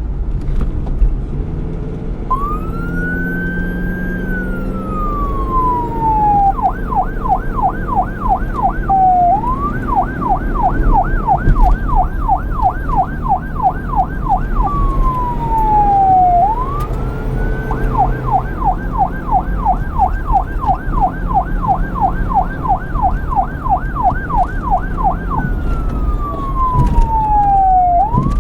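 Police car siren alternating between a slow wail, which rises to a high note and slides slowly down, and a fast yelp of rapid up-and-down sweeps, about three a second. It comes in about two seconds in, over a steady low rumble.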